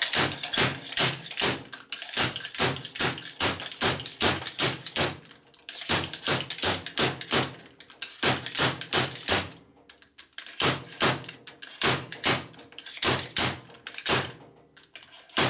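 Rapid hammer blows, about three a second, on a homemade bushing driver, seating a bushing in a motorcycle fork leg. The blows come in runs with brief pauses between them.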